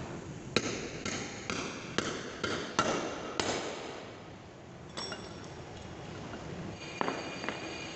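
A steel tube knocked down repeatedly into a truck wheel hub's bearing bore: about seven sharp metal clanks with a ringing tail in the first three and a half seconds, then a few lighter knocks later.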